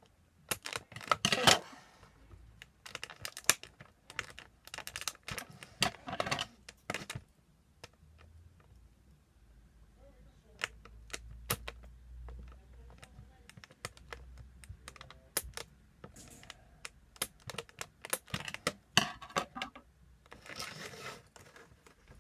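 Plastic toy packaging being handled and pried at: irregular sharp clicks and ticks with a few short crinkling rustles as an action figure is worked loose from its plastic tray.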